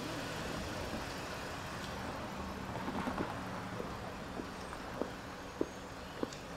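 Steady outdoor traffic rumble, with a few footsteps on pavement clicking about every half second in the second half.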